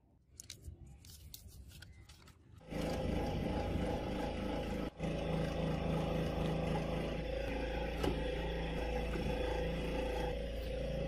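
A steel scriber scratching lightly along a paper template on a red block, then, about three seconds in, a small electric scroll saw starts and runs steadily with a hum and buzz as its blade cuts through the red block. The saw sound drops out briefly near the five-second mark and stops abruptly at the end.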